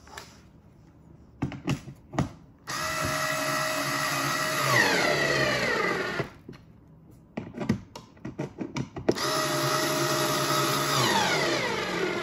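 Black+Decker 4V MAX cordless screwdriver motor running twice, about three seconds each time, driving screws into the chair frame. Each run holds a steady whine that drops in pitch near its end as the screw runs in snug. Clicks and handling knocks come between the runs.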